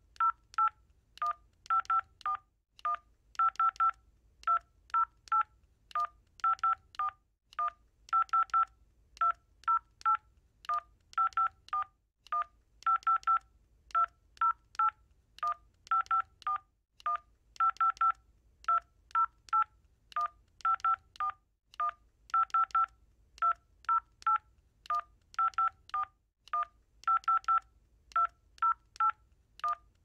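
Touch-tone (DTMF) telephone keypad tones: many short dialling beeps in quick runs, each beep two tones sounding together, with brief pauses between runs as digits are keyed in.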